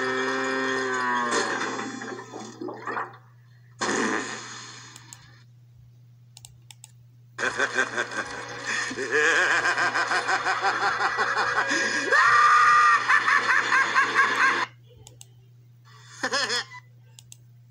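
Cartoon soundtracks coming from a computer's speakers with a steady low hum under them: a short cartoon sound effect at the start, then after a few seconds of quiet a long, pulsing maniacal laugh from the animated Joker, ending abruptly, and a brief burst of sound near the end.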